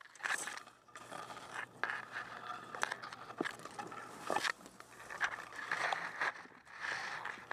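Tall grass, green blades and dry stalks, brushing and scraping against the helmet camera and gear as a person pushes through it: irregular rustling swells with a few short, sharp snaps.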